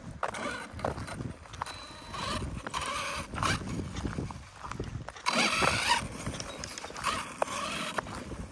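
Arrma Kraton 6S RC monster truck's brushless motor whining in repeated throttle bursts, the loudest just past halfway, as the truck drives over loose gravel with its tyres crunching and clattering on the stones.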